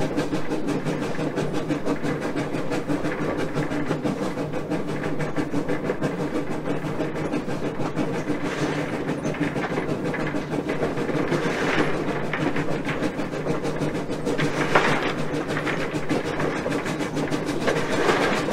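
A 1920 steam locomotive running along the track, heard from its front pilot: a steady rumble and clatter of wheels on rail. A few brief louder rushes of noise come through about halfway through and again near the end.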